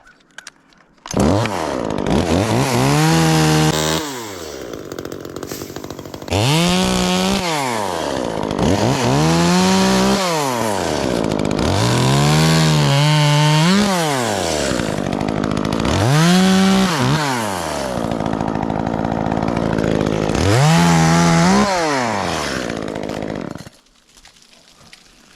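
Chainsaw cutting a piece out of a pine tree. The engine is revved up and drops back about six times in a row, then cuts off abruptly near the end.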